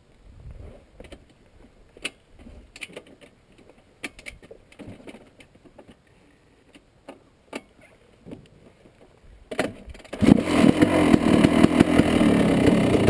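Husqvarna TC250 two-stroke motocross engine being started. Scattered clicks and light knocks come first, then about ten seconds in the engine catches and runs steadily.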